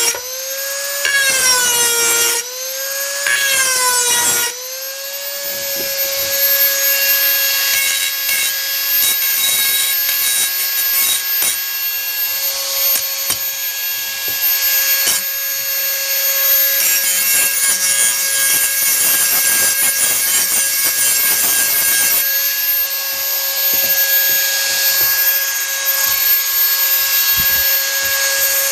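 Dremel 4000 rotary tool running at high speed with a steady whine while grinding a metal tool edge to sharpen it. In the first few seconds the motor's pitch sags and recovers as the bit is pressed in, then it holds steady, with the grinding hiss growing stronger about two-thirds of the way through.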